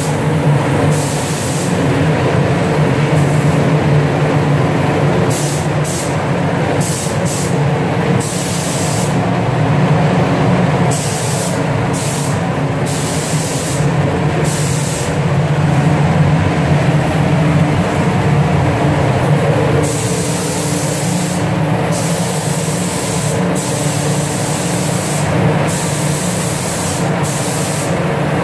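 Gravity-feed spray gun hissing in repeated bursts as its trigger is pulled and released, spraying paint. Under the hiss runs a steady low mechanical drone.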